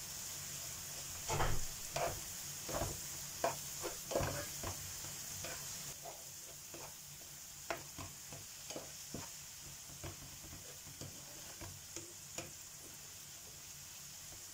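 A spatula stirring and scraping chopped onions and red pepper paste around a frying pan, over a steady sizzle of the onions frying in oil and butter. The strokes come thick and fast for the first few seconds, then thin out to occasional scrapes.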